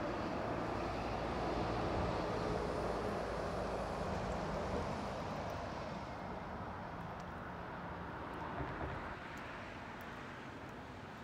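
Road traffic noise, a steady hiss of passing vehicles that slowly fades over the second half.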